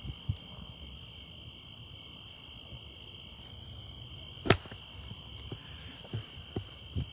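Steady high trill of crickets, with a few soft low knocks and one sharp click a little past halfway.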